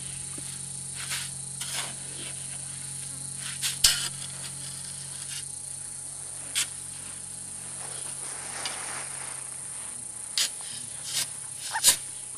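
A long-handled shovel digging into creek-bed sand: a handful of short scraping strikes, three close together near the end. Under them runs a steady high-pitched buzz of insects.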